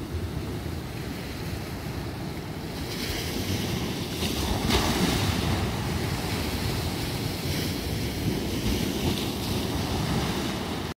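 Surf breaking and washing over rocks at the shoreline, a continuous wash that swells louder about four to five seconds in.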